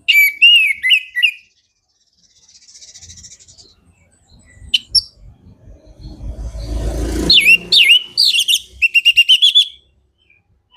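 Orange-headed thrush (anis merah) singing loud, varied whistled phrases in two bursts: one at the very start and one from about seven seconds in, the second ending in a quick run of repeated notes. A faint trill comes in between, and a low rumble rises just before the second burst.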